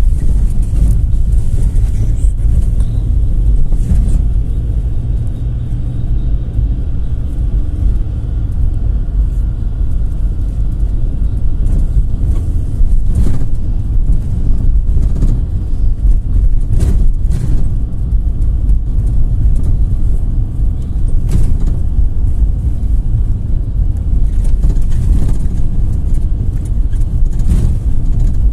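GAZ Gazelle Next minibus under way, heard from inside the cabin: a steady heavy engine and road rumble, with occasional short knocks and rattles.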